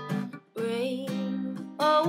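Acoustic guitar strumming minor chords, with a singing voice coming in about half a second in, holding a wavering note, then moving to a louder note near the end.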